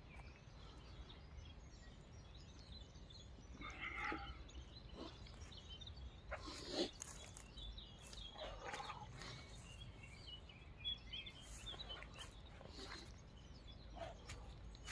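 Faint outdoor ambience: a steady low rumble, scattered short bird chirps, and brief rustles of dry leaves and grass as hands and feet move on the ground, the loudest about seven seconds in.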